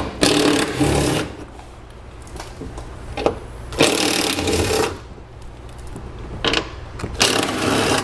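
Cordless power tool running in three short bursts of about a second each, spinning off the 10 mm nuts that hold a car door's window regulator.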